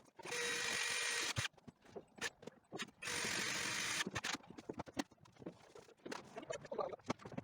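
Handheld power tool running in two bursts of about a second each, with knocks and clatter of timber in between.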